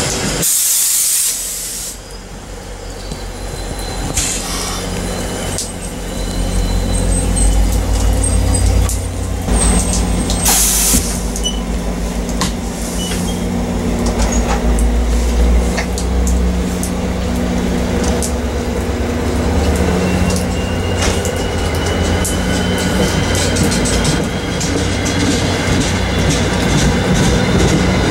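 Passenger train running close by: a steady low locomotive hum with rail and wheel noise. A short loud rush comes in the first two seconds, and a faint high squeal runs through the second half.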